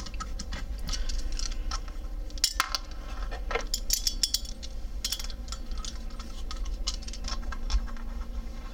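Scattered light metallic clicks and clinks of a small driver, screws and a steel fillet blade being handled while a knife handle is screwed together.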